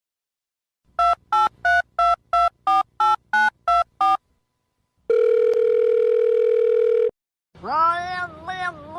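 Telephone keypad dialling: about eleven quick dual-tone beeps at different pitches, then a steady phone tone lasting about two seconds. Near the end a pitched voice comes in, sliding up and down in pitch.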